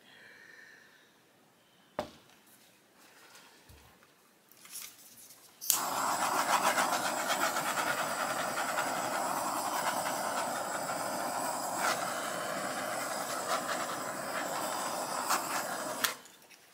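Handheld butane torch lit with a sudden start about six seconds in, then running with a steady hiss for about ten seconds before cutting off, passed over wet acrylic pour paint to pop air bubbles. A single sharp knock comes about two seconds in.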